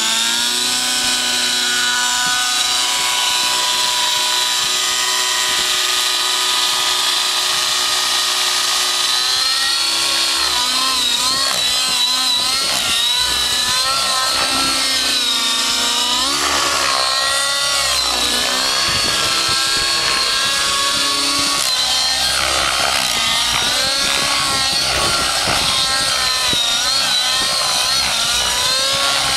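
Curtis Rave 90 nitro RC helicopter's two-stroke glow engine and rotor running. The pitch is steady for the first nine seconds or so, then swings up and down repeatedly as the engine loads and unloads through low aerobatic manoeuvres.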